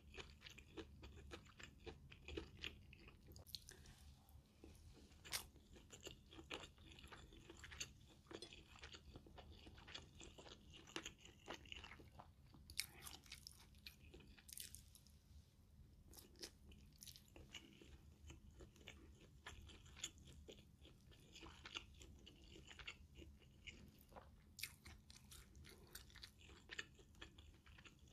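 A person chewing mouthfuls of stir-fried Thai basil minced pork and rice: quiet chewing with many small wet clicks, taken close to the microphone.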